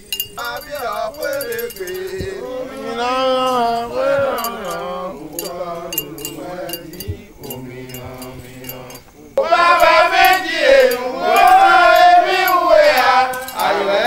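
Voices singing a repetitive ritual chant, with scattered metallic clinks. The singing becomes much louder about nine seconds in.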